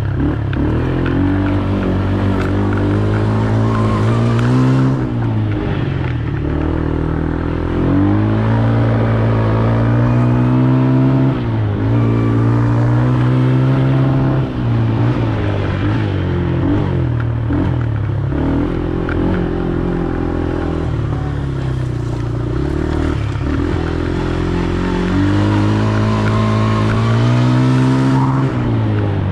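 Excavator diesel engine running, its pitch repeatedly dropping and rising again every few seconds as the machine is worked.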